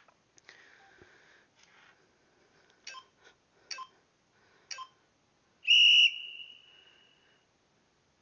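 Workout interval timer beeping: a few short countdown beeps about a second apart, then one long, loud high beep that signals the start of the exercise interval and rings away.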